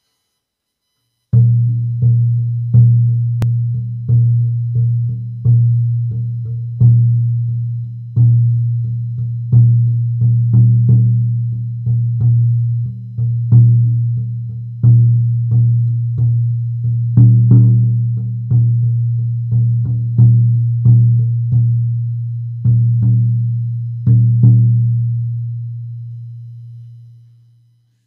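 16-inch buffalo-hide shamanic frame drum struck with a beater, unevenly spaced strokes at about one to two a second, each giving a low ringing tone that carries into the next. After the last stroke the ring fades out slowly near the end.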